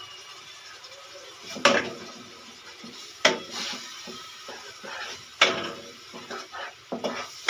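Wooden spatula stirring yogurt into masala in a nonstick wok, with three loud knocks against the pan about two seconds apart, then quicker, softer scraping strokes near the end.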